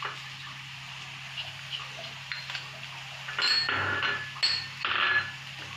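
Onions and spices sizzling steadily in oil in a frying pan. About three and a half and four and a half seconds in there are two louder rasping bursts of about a second each, with a ringing edge.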